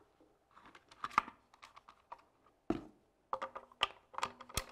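Sharp clicks and light metallic clacks from a Browning X-Bolt rifle's action being worked by hand, a function check after fitting a Timney trigger. The clicks come in quick clusters, thickest near the end.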